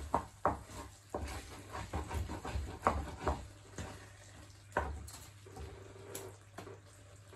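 Wooden spoon stirring and scraping sticky cooked rice in a non-stick frying pan, with irregular knocks and scrapes of the spoon against the pan over the first five seconds or so, quieter after.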